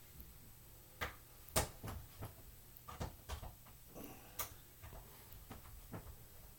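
Irregular light clicks and small knocks of a screw being worked by hand with a screwdriver into a flat-pack bookshelf panel, the screw refusing to go in. The sharpest knocks come about one and a half seconds in and again after about four seconds.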